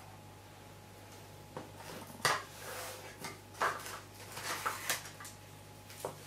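Hands working with a clear acetate sheet and double-sided tape: a handful of short rustles, crinkles and light taps, spaced irregularly.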